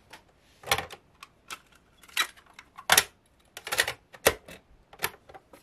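Cassette handled and loaded into a clock radio's cassette compartment: a run of sharp plastic clicks and clacks, irregularly spaced, the loudest about three seconds in.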